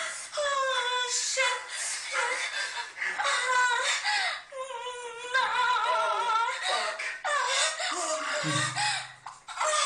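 A high voice singing a wavering melody in short phrases, with vibrato on the held notes. A brief low tone comes in about eight and a half seconds in.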